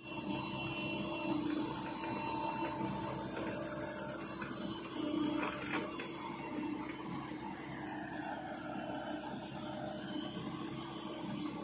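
Diesel engines of a JCB tracked excavator and a Ford farm tractor running together, a steady engine drone with a constant hum, as the stuck tractor is worked free of the mud.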